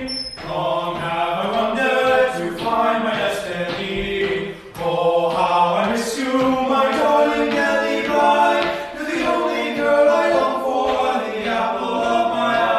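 Unaccompanied choir-like singing: voices holding long, sliding notes with no instruments, with a brief break about four and a half seconds in.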